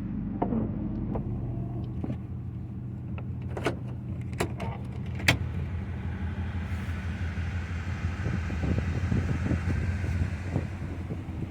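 Van engine running steadily, with a few sharp clicks or knocks about four to five seconds in.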